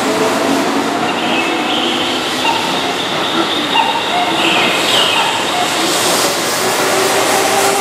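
Keihan 6000-series electric train rolling slowly along the platform: steady wheel and rail noise with several whining tones from the running gear.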